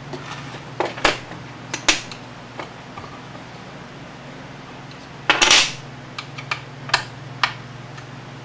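Small metal parts clinking and clicking in scattered strikes, with a longer rattle about five seconds in, over a steady low hum.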